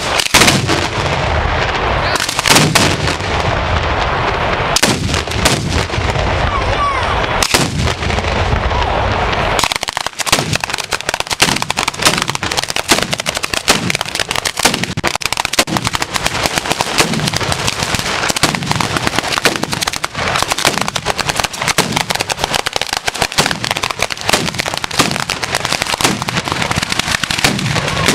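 Ground-level firework battery (batteria alla bolognese) going off in a continuous barrage of firecracker bangs. For roughly the first ten seconds it is heavy booms with several louder bangs, then it turns into a dense, rapid crackle of sharper cracks.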